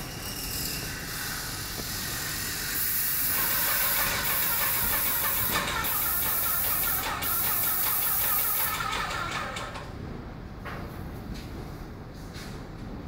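Graco airless sprayer's gun spraying with a steady high-pressure hiss. The hiss swells about three seconds in, holds loud for about six seconds, then cuts off and fades.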